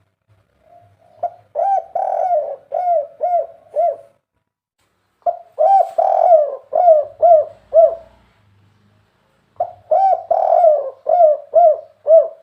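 Spotted dove (tekukur) cooing, played as a hunting lure call: three phrases of about half a dozen arched coo notes each, with short pauses between the phrases.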